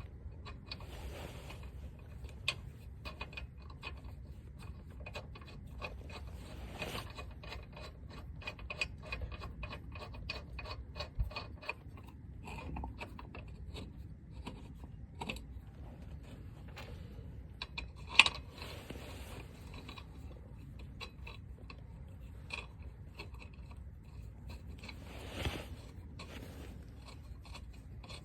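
Small metal clicks and scrapes of lug nuts and a lug wrench on wheel studs while a spare wheel is fitted and a nut will not thread on. One sharper clank comes about two-thirds of the way through.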